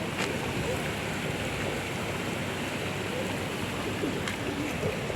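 Stream and waterfall water rushing steadily.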